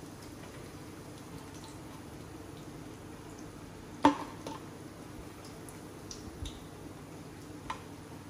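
Metal fork clinking against a stainless steel frying pan and plate as fried dumplings are lifted out of the oil. One sharp clink about four seconds in is the loudest, followed by a few lighter taps over a steady low hum.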